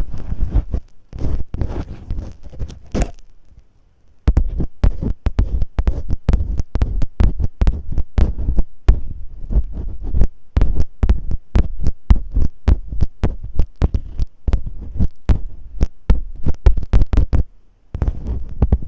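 Masking tape worked right against a microphone in ear-cleaning style ASMR: crackling and rustling with low thumps, a short break about four seconds in, then rapid sharp crackles of the tape until a brief pause near the end.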